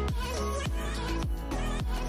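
Background music with a steady electronic beat, a kick drum about twice a second.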